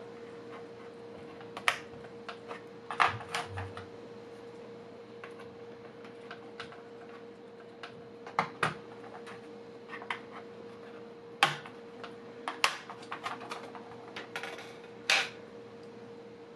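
Irregular light clicks and taps of hands handling the opened case and internal parts of a Wacom MobileStudio Pro tablet, over a steady faint hum.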